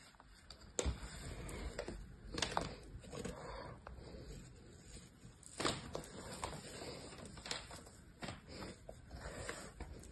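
Small plastic stamp pressed into and lifted out of kinetic sand: a handful of soft, sharp taps over a faint rustle of sand.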